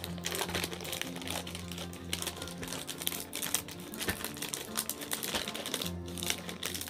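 Crinkly plastic chips packet being torn open and crumpled by hand, with many short crackles, over steady background music.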